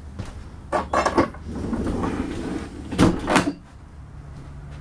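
Wooden knocks and clatter from the motorhome's kitchen cabinetry and countertop being handled. One cluster comes about a second in and another about three seconds in, over a steady low hum.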